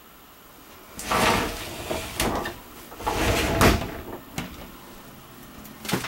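Doors sliding along their tracks twice, each pass a swish about a second long with sharp knocks, then a few lighter clicks.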